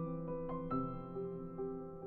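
Soft background piano music: gentle sustained notes changing every half second or so.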